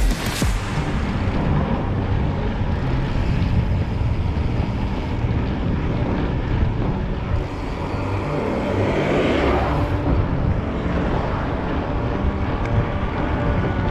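Riding noise from a mountain bike on a rough trail: wind rushing over the microphone and tyres rolling over gravel and rock, with a louder swell about two-thirds of the way through. Music with changing bass notes runs faintly underneath.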